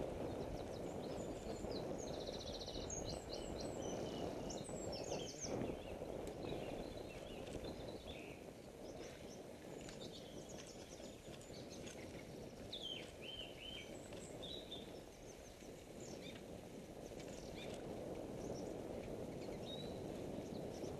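Small songbirds chirping and trilling on and off, including a quick rapid trill about two and a half seconds in, over a steady low rumble of wind and road noise from the moving camera.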